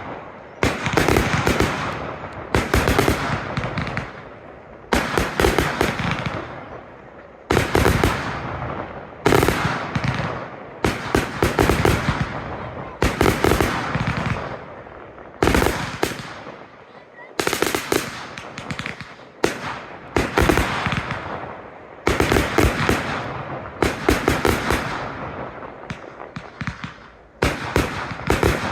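Fireworks going off in a professional display: volleys of sharp bangs every second or two, each followed by a fading crackle.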